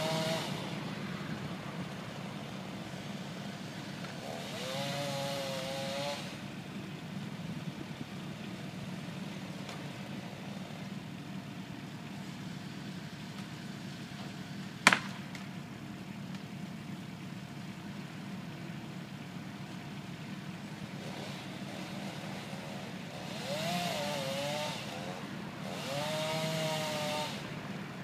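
Chainsaw revving in two short spells, about four seconds in and again near the end, over a steady low engine hum. A single sharp crack halfway through is the loudest sound.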